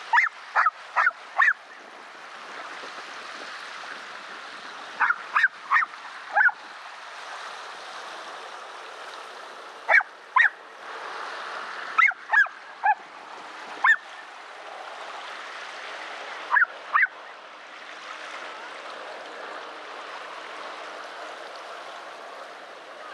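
An animal giving short, loud, barking or honking calls in groups of two to four, with pauses of a few seconds between groups, over a steady rushing background noise.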